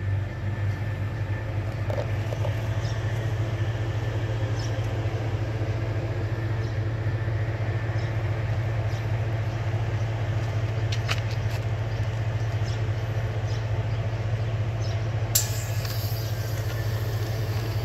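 Homemade air compressor built from a refrigerator compressor motor, running with a steady low hum as it pumps air into a motorcycle tyre. A sharp click sounds near the end.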